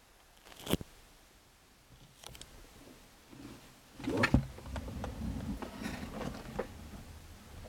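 An aluminium carry case being handled and opened: a sharp click just under a second in and a fainter one after two seconds. About four seconds in the lid comes open with loud knocks, followed by low rubbing and small clicks as it swings back.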